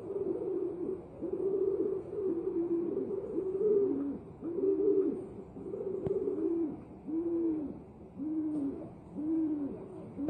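Doves cooing: a run of low, arching coos about one a second, overlapping at first and then coming one at a time.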